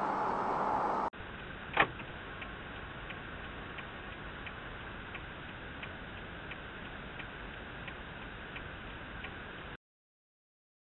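Inside a moving car, a sharp click is followed by the steady ticking of a turn-signal indicator, about one and a half ticks a second, over a low hum of driving. Louder traffic and road noise fill the first second, and all sound cuts off suddenly near the end.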